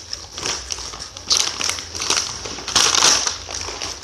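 Crackly crunching from a packet of taro snack chips, in irregular bursts, loudest about a second in and again near three seconds.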